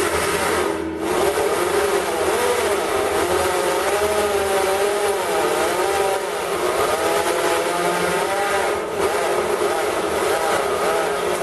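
Corded electric drill with a failing gearbox cutting through stainless steel sheet with a core drill. It makes a loud, noisy whine whose pitch wavers up and down as the load changes, and it eases briefly about a second in and again near nine seconds.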